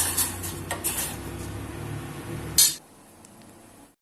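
A spoon stirring and clinking in a pan of spiced water boiling for kadha, over a low steady hum. A louder scrape comes near the end, and then the sound drops off sharply.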